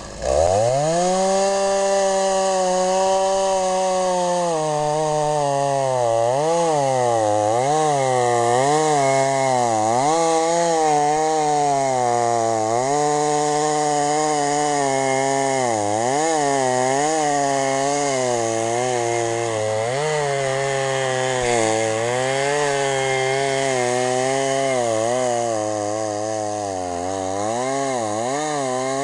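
Two-stroke chainsaw powering a chainsaw mill. It is throttled up to a steady high run for a few seconds, then its revs repeatedly sag and recover as the chain cuts along a log.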